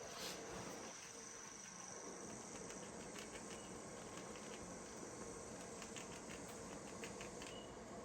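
Faint steady hum with scattered light ticks and rustles, and a few brief high chirps.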